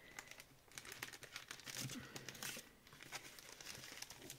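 Clear plastic pocket sleeve crinkling as fingers press and pick at its card pockets: faint, irregular crackles throughout.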